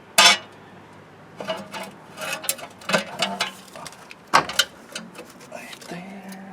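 Metal clanks and clicks as a replacement starter motor is set against the engine block and its mounting bolts are handled. There is one sharp knock near the start, then a run of irregular lighter clicks and knocks.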